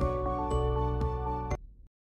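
Outro background music with steady held notes over a light beat, cutting off about one and a half seconds in.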